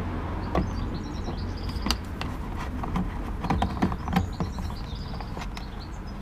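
Scattered small clicks and taps of a hand Torx screwdriver working the screws on a car's fog-light surround, with birds chirping in short repeated notes in the background and a steady low rumble.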